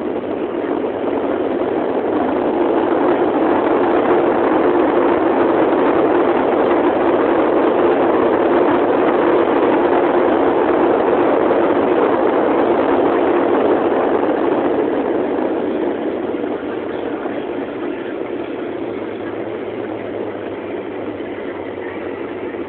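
Airbus A320 jet engines heard from inside the cabin during the landing roll: the engine noise builds over the first few seconds and holds, typical of reverse thrust. About fifteen seconds in it falls away to a lower, steady rumble as the aircraft slows.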